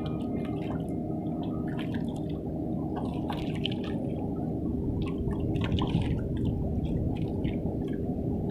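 Seawater washing at the shore: a steady low rush with scattered crackles and drips.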